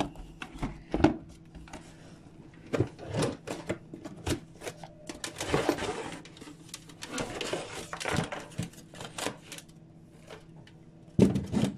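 Irregular clicks, knocks and rustling of plastic housewares and their packaging being handled and moved, over a faint steady hum.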